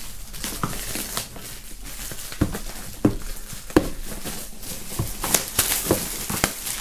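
Plastic shrink-wrap film crinkling as it is pulled off a cardboard box, with a series of short knocks and taps as the box is handled on a table, the crinkling busiest near the end.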